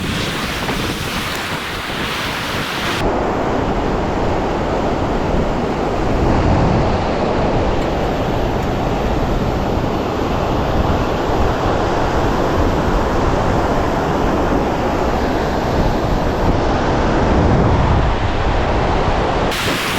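Large waterfall on the Moose River roaring: a loud, steady rush of falling water.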